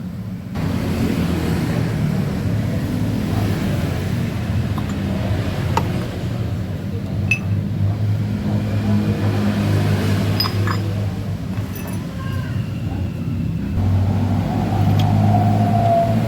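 A steady low mechanical drone that swells a little louder twice, with a few light clicks over it.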